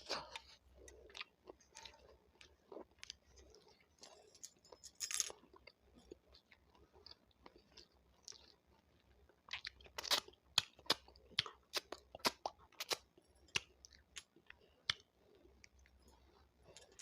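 Crunchy chewing of capsicum (bell pepper), many crisp crunches in uneven succession, densest and loudest from about ten to thirteen seconds in.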